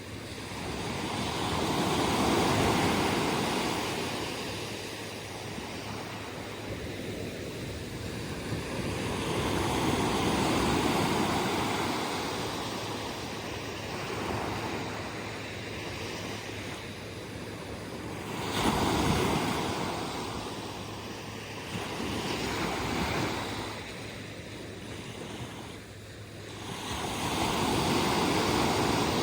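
Atlantic surf: waves breaking on the beach and washing back, swelling and fading about every eight seconds, with a sharper crash a little past the middle.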